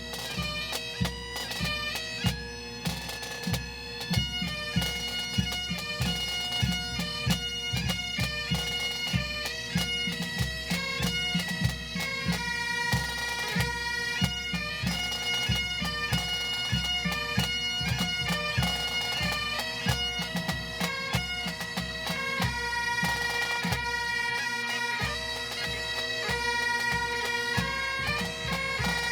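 Pipe band playing a medley of military service songs: bagpipes carrying the melody over their steady drones, with drums beating a regular time.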